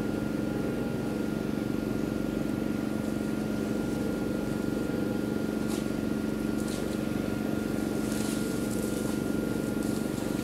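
A motor running steadily: an even low hum with a thin constant high tone above it, and a few faint scratchy sounds about halfway through and again near the end.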